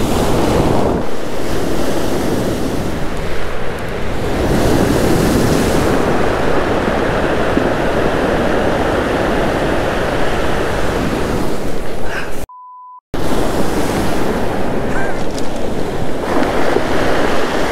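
Ocean surf washing and breaking on a cobble beach, with wind buffeting the microphone. About twelve and a half seconds in, the sound cuts out for half a second and a short, quiet, steady beep takes its place.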